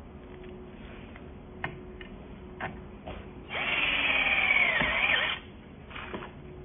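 XCORT XDC08-12S cordless drill running for about two seconds with its bit on a hex-head screw: a high motor whine that starts about three and a half seconds in, sags in pitch, rises again and cuts off. A few light clicks come before it.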